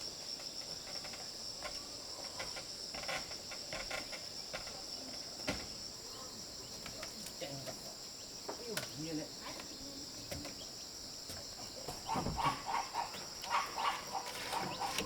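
A steady high-pitched chorus of insects trilling, with scattered faint clicks. Near the end an animal joins in with a rapid series of short calls.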